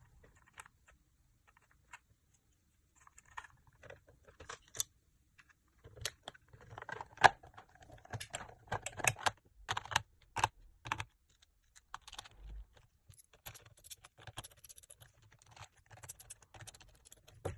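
Hard plastic toy shell parts clicking and knocking as they are handled and pressed together, the clicks sparse at first and bunched into a run of louder snaps in the middle.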